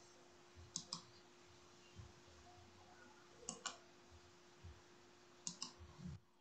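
Near silence broken by three pairs of sharp clicks, the two clicks in each pair a fraction of a second apart, over a faint steady hum.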